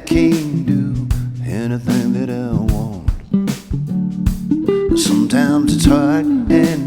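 A song with acoustic guitar accompanying a voice singing a verse.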